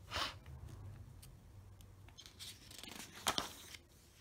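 Paper pages of a spiral-bound book being turned by hand: two soft swishes, one at the start and one about three seconds in.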